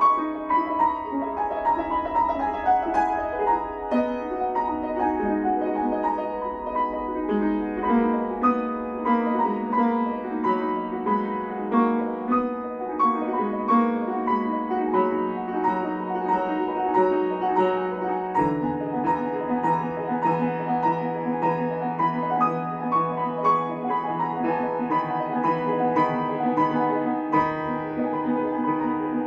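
Grand piano played solo: a continuous flowing passage of many quick notes over held chords, the bass moving to a new, lower chord about two-thirds of the way through.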